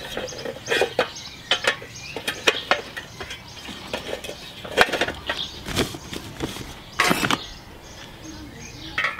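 Cast iron cooking grates clinking and knocking against the steel body of a portable charcoal barbecue as they are handled and set in place, in irregular sharp clicks, with one longer burst of noise near the end.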